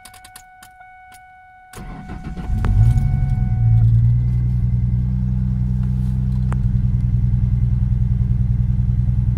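A steady high tone with a few clicks, then the 2004 Ford Mustang's 3.9L V6 cranks and starts about two seconds in and settles into a running idle with a fast, uneven pulse. The engine is misfiring badly, traced to cylinder 3 (code P0303).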